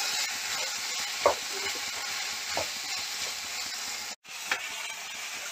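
A vegetable sabzi sizzling in a kadai as it is stirred with a wooden spatula, with a steady hiss and a few light knocks of the spatula against the pan. The sound drops out for a moment about four seconds in.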